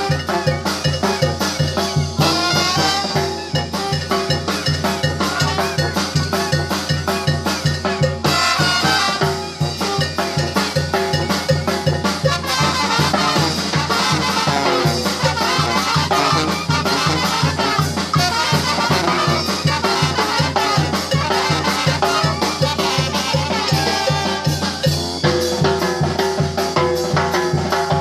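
Mexican banda brass band playing live: trumpets, trombones and a sousaphone over a bass drum with a mounted cymbal and a pair of snare drums. The drums keep a steady, even beat.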